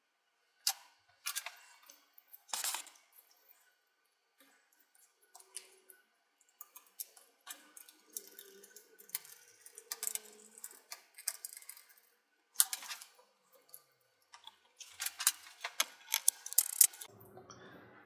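Irregular clicks, taps and short scrapes of hand work inside an opened laptop, a small screwdriver turning the CPU heatsink screws and parts being set down.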